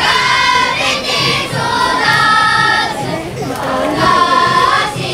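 A group of children singing a song together in chorus, holding each note and moving from note to note.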